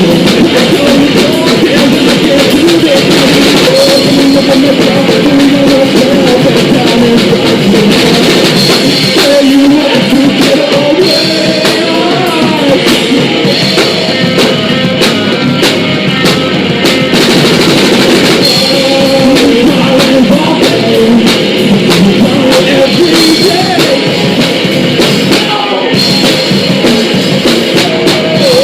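Live punk rock band playing loud through a small club PA: distorted electric guitar, bass and pounding drum kit, with shouted vocals over the top.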